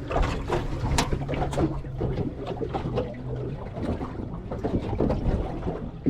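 Knocks and clatter aboard a small fishing boat, over water and wind noise, with a sharp knock at the start and another about a second in. A low steady hum runs through the first half.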